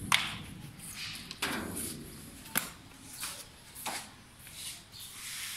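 Butcher's knife chopping and handling goat meat: four sharp knocks about a second apart, with rustling between them.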